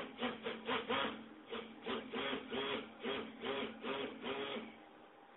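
Electric stick blender running in a small cup of coloured cold-process soap batter. Its motor whirs in quick pulses, rising and falling about four times a second, then stops shortly before the end.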